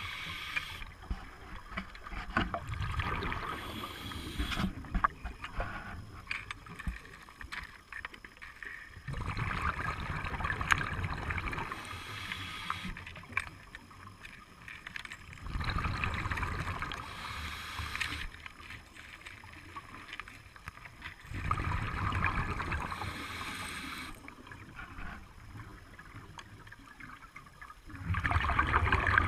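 Underwater scuba breathing through a regulator: a hiss on each breath, then a rush of exhaled bubbles, repeating about every six seconds.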